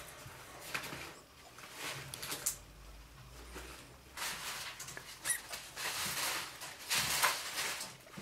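A degu moving about in shredded paper bedding, giving irregular rustling and crinkling that grows louder and busier in the second half.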